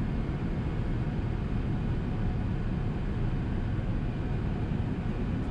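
Airbus A380 cabin noise in flight, heard inside the cabin: a steady, low rush of airflow and engine noise with no changes.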